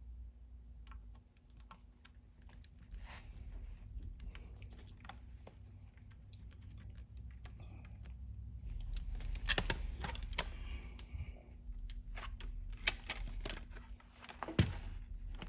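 Irregular light clicks and taps of a screwdriver and small metal parts being handled on a workbench while a screw is driven, busiest about two-thirds of the way through.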